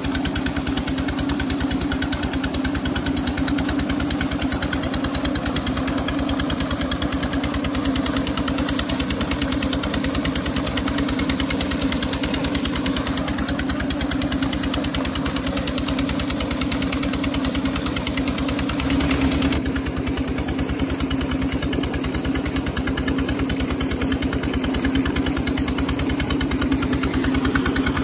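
Engine running steadily with a fast, even knocking beat, with water gushing and splashing from a pump outlet into the pond.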